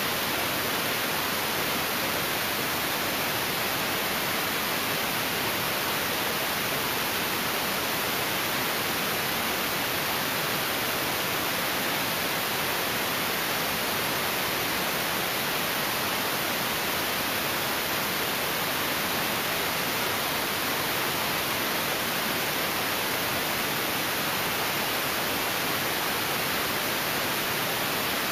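Steady, even hiss like static or white noise, unchanging throughout, with no rotor beat or engine tone to be heard.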